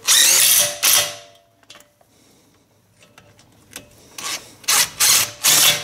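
Socket ratchet clicking in rasping strokes as the wheel hub's mounting bolts are snugged up ahead of torquing. There is one longer run at the start, then a quick series of short strokes near the end.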